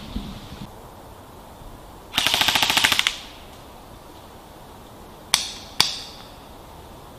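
Airsoft electric gun firing a short full-auto burst of rapid, evenly spaced shots lasting just under a second, followed a couple of seconds later by two single sharp cracks about half a second apart.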